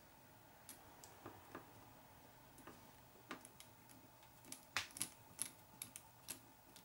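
Faint, scattered small clicks and taps of a hex driver and small metal parts at an RC car chassis as a screw is driven in, coming more often and louder past the middle.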